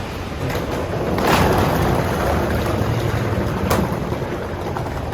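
Road traffic at an airport terminal curb, a steady rumble that swells as a vehicle goes past about a second in. A sharp click near the end.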